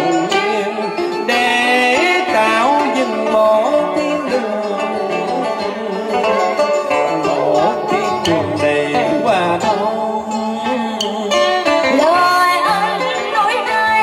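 Vọng cổ instrumental accompaniment: plucked strings playing sliding, bending notes between the sung verses.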